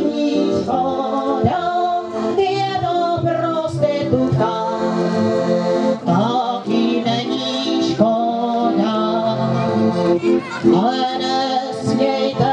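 Live piano accordion playing a tune with a woman singing along, amplified through stage loudspeakers.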